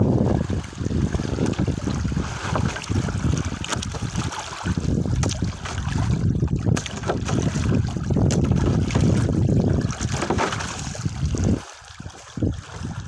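Wind buffeting the phone's microphone, with small waves lapping at the shore; the wind drops away briefly near the end.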